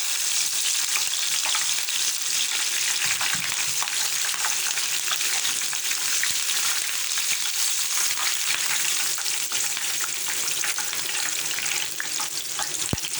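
Curry leaves and slit green chillies frying in hot oil in a pan: a steady sizzle with many small crackles.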